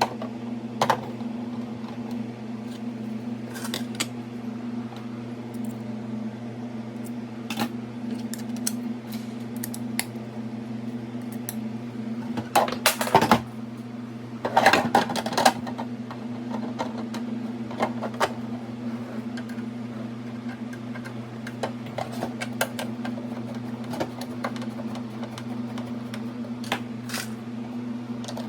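Steady low electrical hum, as of a fan, under scattered light clicks and knocks of small parts being handled, with two louder clattering spells about halfway through.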